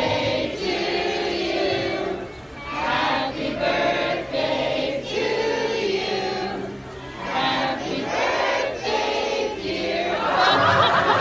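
A crowd of people singing together in unison.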